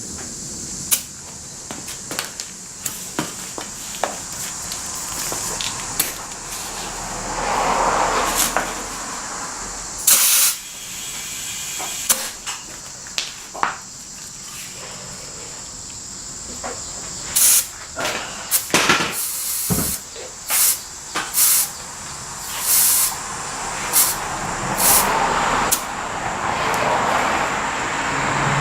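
Scattered clicks and knocks of tools and parts being handled over a steady high hiss, with a short loud hissing burst about ten seconds in and a vehicle passing near the end.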